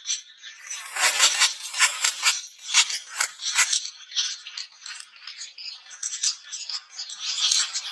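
Many small balls clattering as they roll along a wavy wooden marble-run track, a dense, uneven rattle of clicks that starts about a second in.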